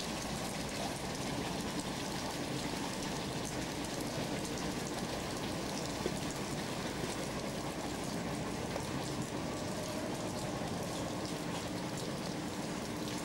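Steady rain falling: an even hiss with many fine ticks of drops.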